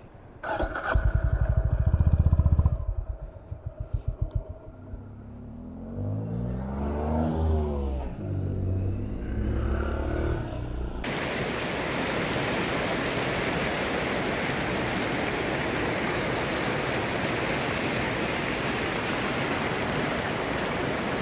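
Honda CB350 H'ness single-cylinder motorcycle engine running loudly, then slowing to a few separate thumps and stopping. A vehicle or two passes with pitch rising and falling, and from about eleven seconds in a river's steady rush takes over.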